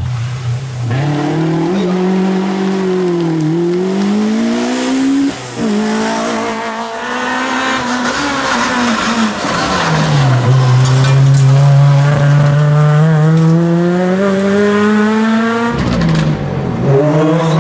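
Rally car engines at full throttle, revving up and dropping through gear changes, with tyre squeal. Several separate passes follow one another. The longest is one steady climb in revs through the second half.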